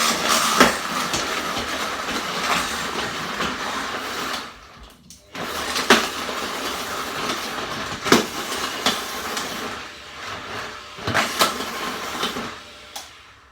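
Food processor blending a raw avocado and vegetable soup with ice cubes. It runs for about four seconds, stops briefly, then runs again and cuts off near the end. Sharp knocks of something hard striking inside the bowl come several times.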